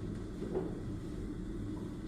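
Steady low background rumble and hum, with one brief soft sound about half a second in.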